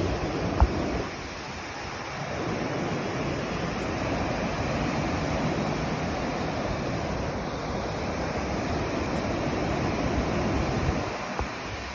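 Ocean surf washing onto a beach: a steady rushing noise that dips about a second in, swells back and dips again near the end. A single sharp knock comes just after the start.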